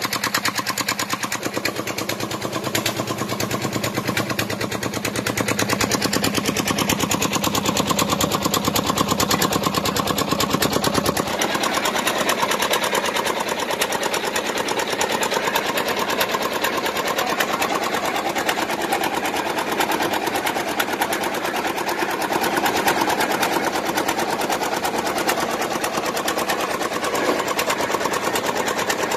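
Boat's diesel engine running steadily with a rapid, even knocking; its deep rumble drops away about eleven seconds in.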